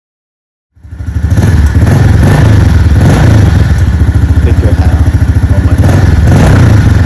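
Dirt bike engine running loudly with a fast, even low pulse, starting abruptly under a second in.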